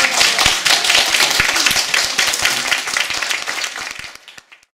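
Audience applauding, a dense crackle of many hands clapping that fades out shortly before the end.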